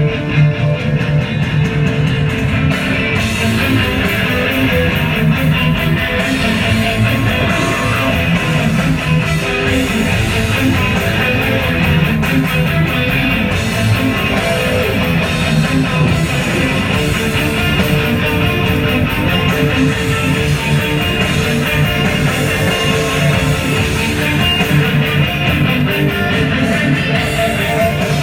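Guitar-driven music with strummed electric guitar and bass, steady throughout.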